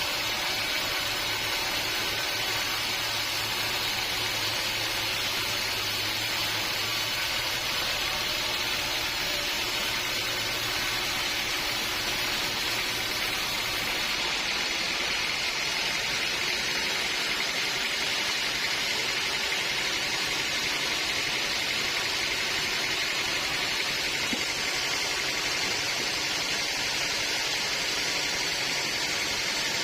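Band sawmill running steadily, a continuous machine hiss of the blade and motor. A low hum drops out about halfway through, and the hiss carries on.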